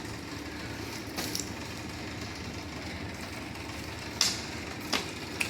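Steady machinery hum, like a motor running, with a few short knocks and clicks, the loudest about four seconds in.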